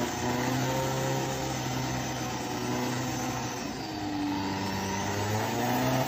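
Off-road 4x4's engine running hard under load as it climbs through deep mud. The revs sag a little past halfway, then pick up again near the end.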